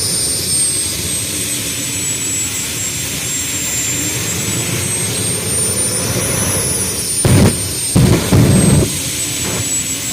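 Jet engine from a military helicopter, mounted on a modified Suzuki quad runner, running with a high whine that slowly dips and rises. A little past seven seconds in come two loud bursts, one short and one about a second long, the jet's flame-belching blasts from the exhaust.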